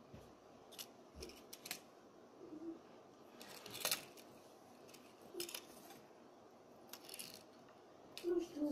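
Scattered light clicks and rattles of small hard toys being handled, with a longer clatter about four seconds in.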